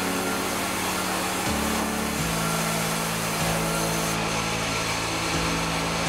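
Sawmill band saw and its drive motor running steadily as boards are fed through the blade: a continuous, even machine noise with no breaks.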